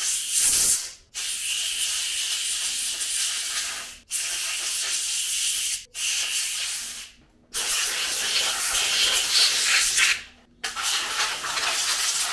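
Compressed-air blow gun hissing in about six blasts of one to three seconds each, with short pauses between, blowing dust out of a Roborock S6 robot vacuum's clogged foam exhaust filters.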